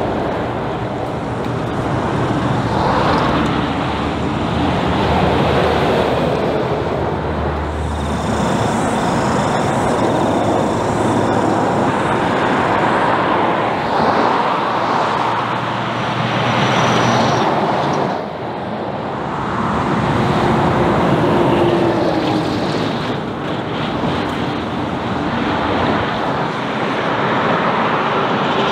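Heavy diesel trucks with trailers passing on a highway one after another: engine and tyre noise swelling and fading as each goes by, with a brief drop in level about 18 seconds in.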